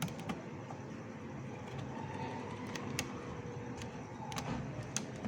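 A few light, sharp clicks and taps of hands working a flat flex cable connector loose from a TV's T-con board, over a steady low background rumble like distant traffic.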